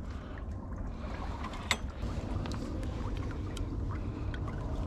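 Steady low wind rumble on the microphone, with scattered light clicks and one sharper click a little under two seconds in as gear and the bagged duck are handled in the blind.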